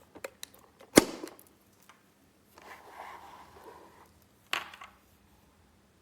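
Handling noises: a few light clicks, a sharp knock about a second in, a second and a half of rustling or scraping noise, then another sharp knock near the end.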